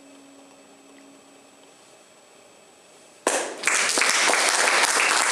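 A final held note fades away. About three seconds in, audience applause breaks out suddenly, checks for a moment, then carries on steadily.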